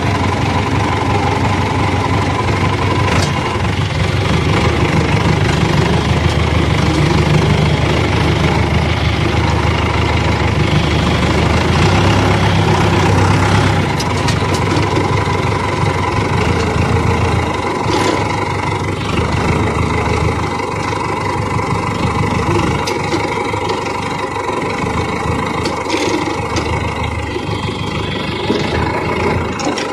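John Deere 2450 tractor's diesel engine running steadily, a little louder for several seconds in the first half, then easing off.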